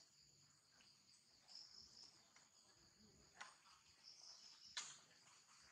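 Faint insect chirring, a high steady trill, with two light clicks, about three and a half and five seconds in.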